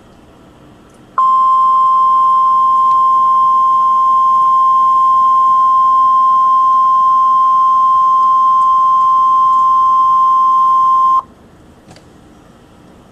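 NOAA Weather Radio 1050 Hz warning alarm tone: one steady, loud, high tone lasting about ten seconds, starting about a second in and cutting off sharply, over faint radio hiss. It signals that an urgent weather message follows, here a tornado emergency statement.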